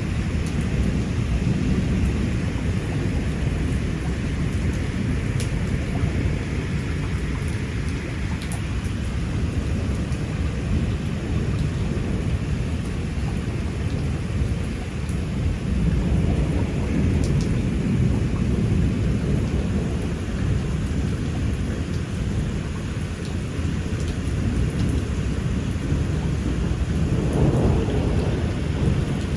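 Heavy rain pouring steadily in a thunderstorm, a dense hiss of rain over a continuous low rumble.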